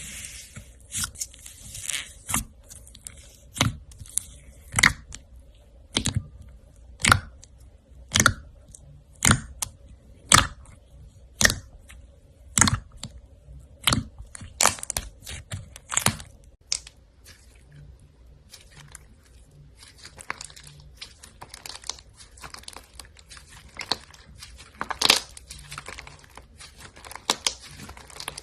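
Slime being squeezed and pressed by hand, giving sharp crackling pops about once a second, which turn into a denser, continuous crinkly crackle in the last ten seconds.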